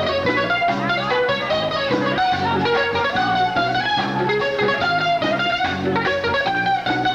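A live bachata band playing an instrumental passage, a lead guitar picking a melody over steady bass notes and rhythm accompaniment.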